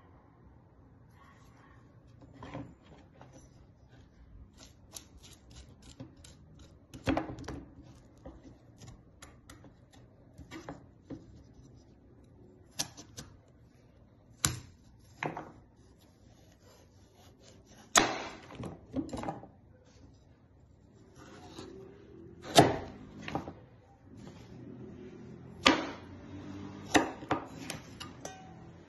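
A large handmade chef's knife chopping through a raw pumpkin, the blade knocking on a wooden cutting board in about a dozen irregular strokes, with softer slicing and scraping sounds between them.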